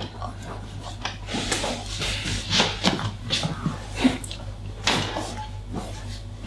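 Hands rubbing and pressing on bare skin during a back massage, with scattered short knocks and thuds as the leg is lifted and moved on the massage table.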